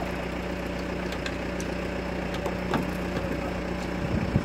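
An engine idling steadily, with a low even hum, and a few faint clicks.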